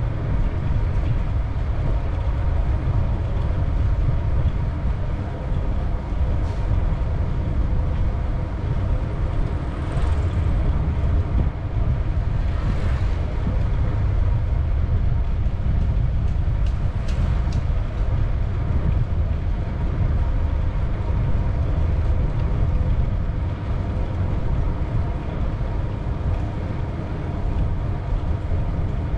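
Steady low wind rumble on an action camera's microphone during a bicycle ride, with a faint steady whine underneath and a few brief clicks.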